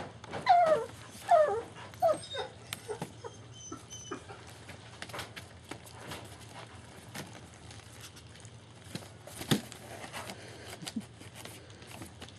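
German Shepherd puppies whimpering, about five short high cries in the first three seconds. Then come scattered small clicks and smacks of the puppies eating from a metal pan and moving on newspaper, with one sharp tap about nine and a half seconds in.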